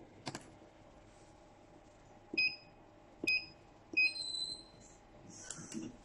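Touch-screen control panel of an electric wire stripping machine beeping three times as its buttons are pressed, short beeps about a second apart. A click comes just after the start, and a brief hiss-like burst comes near the end.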